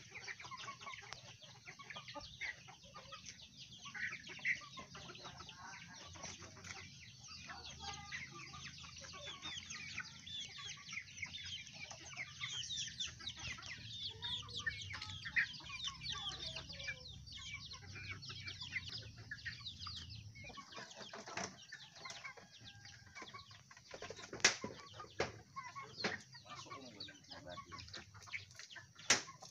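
A flock of Indonesian village chickens (ayam kampung) clucking and calling as they forage and peck. Many short, high calls overlap.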